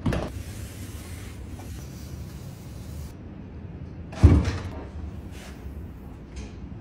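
McLaren 720S body panels: a short thud as the door shuts at the start, then a louder, deeper thump about four seconds in as the front luggage lid is released from the key fob and springs open.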